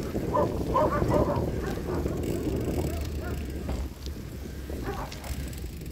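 Wind buffeting the microphone and tyre noise from a bicycle rolling along an asphalt lane, a steady low rumble that eases after about four seconds. A few short pitched calls or squeaks sound in the first second and a half, with fainter ones later.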